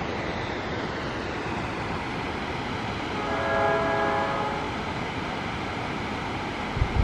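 A distant locomotive horn sounds once, a chord lasting about a second and a half, partway through, over a steady rushing noise.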